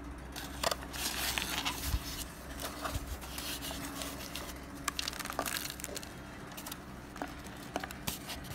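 Dry, crumbly chunks of microwaved cornstarch tipping out of a cardboard box onto a foam tray: scattered light clicks and rustling of cardboard.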